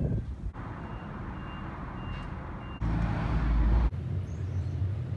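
Street traffic noise with a vehicle's reversing alarm sounding three short high beeps, followed by a louder low rumble lasting about a second and a steady low engine hum.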